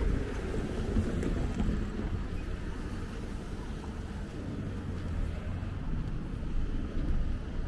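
Street ambience: a steady low traffic rumble with wind buffeting the microphone.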